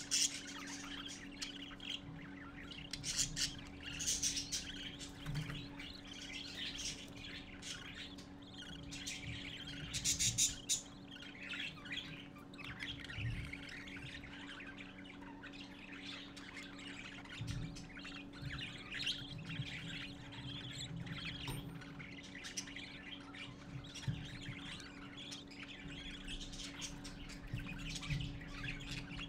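Budgerigars, chicks and an adult crowded together, chirping and chattering continuously, with louder flurries of chirps a few seconds in and again about ten seconds in. A steady low hum runs underneath.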